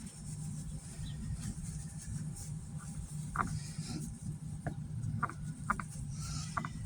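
A steady low hum with a few light, scattered clicks and taps from about halfway through, typical of parts and tools being handled on a bench.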